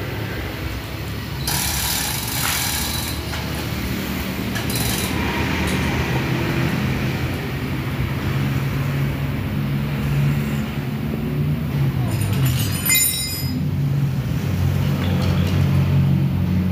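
Short bursts of metallic clatter from hand work on the gearbox bolts, about a second and a half in, briefly around five seconds, and again near thirteen seconds. Under them runs a steady low hum.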